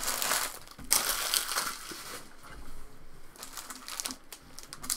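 Foil trading-card pack wrapper crinkling as it is handled and crumpled, loudest over the first two seconds, then softer, scattered rustles.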